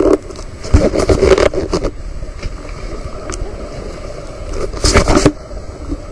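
Wind buffeting an open-air microphone over a steady rush of river water, with two stronger gusts, about a second in and again near five seconds.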